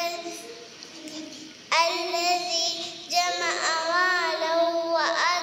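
A young girl singing a melodic chant with wavering, drawn-out notes, quiet at first and then coming in loud in two long phrases from a little under two seconds in.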